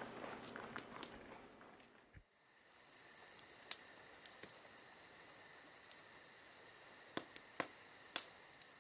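Running footsteps on pavement fading away over the first couple of seconds, then faint crickets chirping steadily, with a few scattered sharp clicks.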